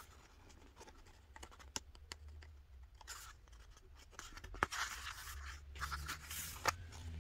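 Pages of a paperbound album photo book being handled and turned: soft paper rustling and scraping in a few short swells, with light clicks.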